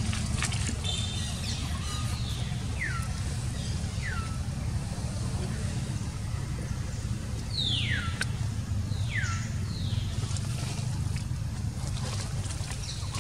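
A steady low rumble with short, high whistled calls that drop sharply in pitch, heard in two pairs a few seconds apart.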